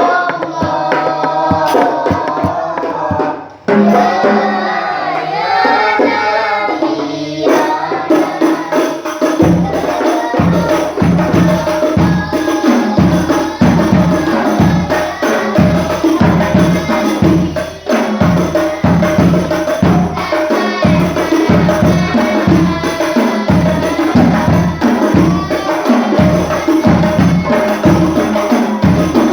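A hadroh ensemble plays: rebana frame drums and tambourine jingles under voices in the first few seconds. About nine seconds in, a deep bass drum enters with a steady beat, roughly two strokes a second.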